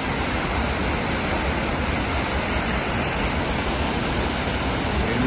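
Steady rushing of a large waterfall, Multnomah Falls, pouring down: an even, unbroken noise.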